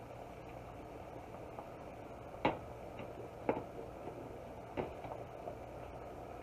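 Wooden spoon and glass lid knocking three times against the rim of a stainless steel saucepan as the pot of rice is covered, over the steady bubbling of the water at the boil on a gas burner.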